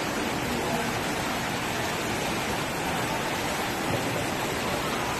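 Fountain jets falling into a pond: a steady rush of splashing water.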